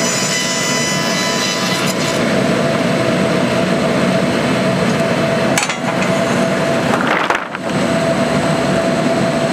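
MS Maschinenbau sawmill line running: the saw unit and powered roller conveyor make a steady mechanical noise with a constant whine as sawn boards feed out onto the rollers. The sound dips briefly twice, about five and a half and seven seconds in.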